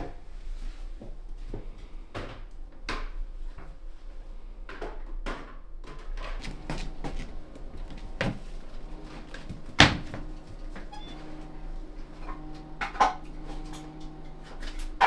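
Footsteps on a hard floor, then knocks and clunks as a storage cupboard is opened and things inside it are handled, the loudest a sharp knock about ten seconds in. A low steady hum comes in about nine seconds in.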